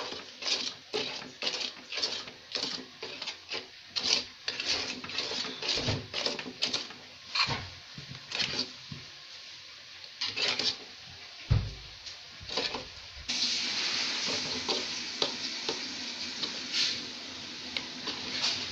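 A spoon stirring and scraping a pan of cooking jackfruit toffee mixture in many short, uneven strokes. About two-thirds of the way through, a steady hiss sets in under the scraping.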